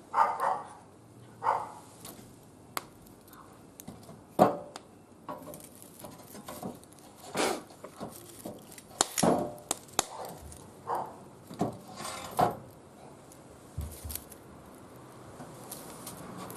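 Wood fire burning in a barbecue grill, with scattered sharp crackles and knocks of burning or shifted wood.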